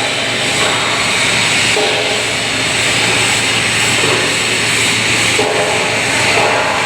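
Steady, loud industrial machinery noise with a constant low hum, from automatic submerged-arc pipe-welding equipment running.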